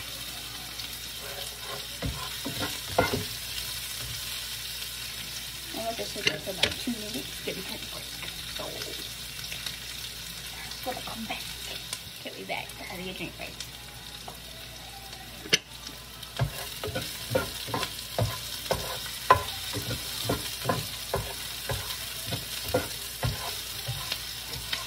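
Onions sizzling as they fry in a non-stick pot on a gas burner, slowly browning, while a spatula stirs and scrapes against the pan. The scraping strokes come quickly and steadily in the second half.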